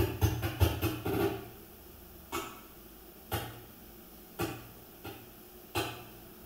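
A loud low-pitched noise fades out about a second in. Four separate sharp knocks follow, roughly one every second.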